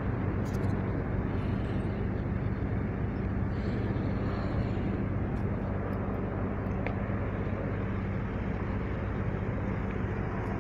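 Steady low engine hum over a constant wash of road traffic noise, with no rise or fall.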